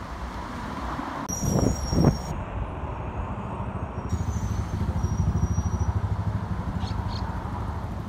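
Street ambience: low rumble of road traffic mixed with wind buffeting the microphone, with two louder surges about two seconds in and a stronger fluttering rumble in the second half.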